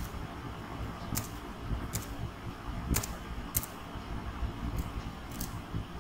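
Computer keyboard keys being typed one at a time: about seven sharp clicks at uneven spacing over a steady low background hum.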